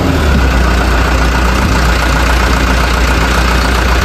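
A bus's diesel engine idling with a steady low rumble, a faint steady whine running over it.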